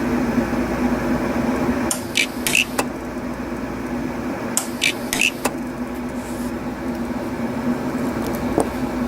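Pulse-arc welder firing short arc discharges to round the tip of a wire into a ball: a quick run of four sharp snaps about two seconds in, another run of four about halfway, and a single snap near the end, over a steady electrical hum.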